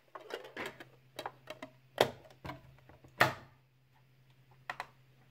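Handling noise: a hand fumbling with a black object held close to the microphone, making an irregular run of clicks and knocks, two of them louder, about two and three seconds in, over a faint steady low hum.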